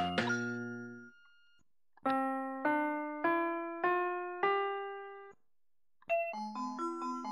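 Electronic keyboard-style melody from a 2009 VTech Singspaß toy microphone. A tune's last chord fades out, then five slow notes climb one step at a time, and after a short pause a new quicker tune starts near the end.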